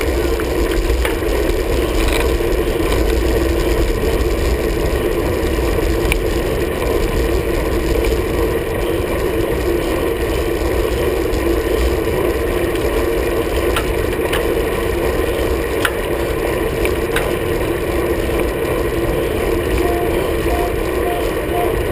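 Steady rush of wind and road noise on a camera mounted to the handlebars of a road bike riding at speed, with a few faint clicks scattered through.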